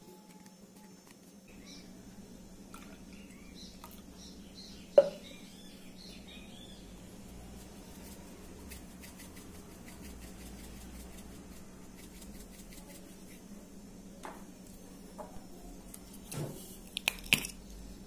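Kitchen counter handling sounds over a steady low hum: a single sharp click about five seconds in and a short clatter of knocks near the end. Faint bird chirps come in early on.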